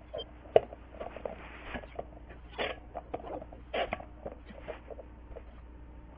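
Handling noise from a hand on a stainless steel vacuum pot: irregular scratchy rustles and light knocks, with a sharp click about half a second in.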